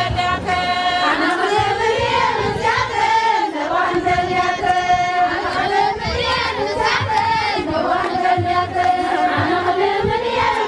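A song sung in unison by a group of women's voices, holding long wavering notes, over a steady instrumental backing with a low bass line.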